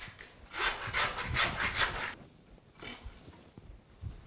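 Butcher's knife scraping in a run of quick strokes, about four a second, with a faint metallic ring, then one short stroke.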